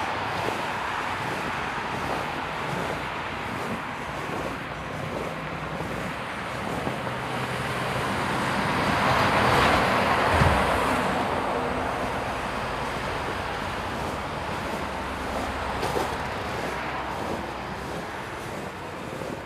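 Road traffic: a motor vehicle passing, growing louder to a peak about halfway through and then fading, over a steady background of traffic noise.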